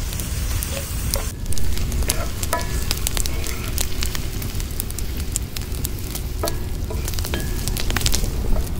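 Sliced onions sizzling and popping in hot oil in a cast-iron pan, stirred with a wooden spatula that scrapes the pan. The wood fire crackles underneath.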